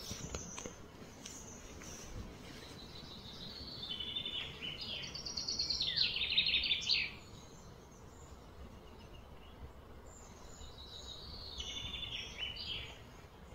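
A bird singing: a run of quick, high repeated notes lasting a few seconds, then a second, shorter phrase near the end, over a steady outdoor background hiss.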